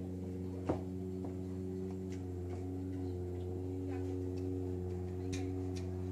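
A motor running with a steady low hum. A sharp click comes about a second in, and a quick run of lighter clicks follows near the end.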